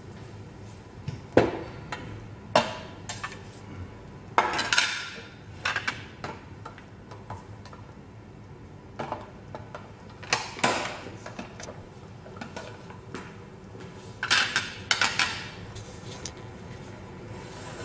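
Plastic and metal parts of a hand-crank vegetable spiralizer being handled on a glass tabletop: scattered clicks and short clattering knocks, with two sharp knocks in the first few seconds and bunches of clatter at intervals after.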